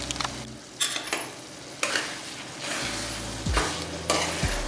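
Stirring in a metal kadai of frying masala curry with curd just added: several scrapes of the utensil against the pan over a low sizzle.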